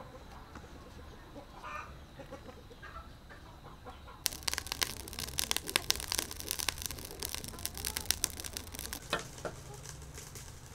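Wood and charcoal fire crackling in a clay stove, a dense run of sharp snaps and pops throwing sparks, starting suddenly about four seconds in and dying down near the end.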